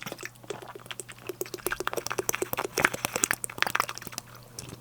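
A person drinking water in a quick run of gulps and swallowing clicks, stopping about four seconds in.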